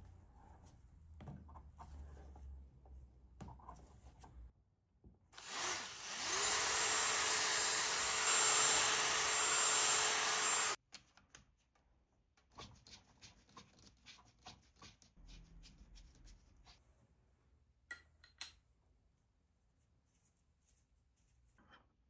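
A small electric power tool runs for about five seconds, its motor rising to speed and then cutting off sharply. Around it come light clicks and taps of small parts being handled and fitted.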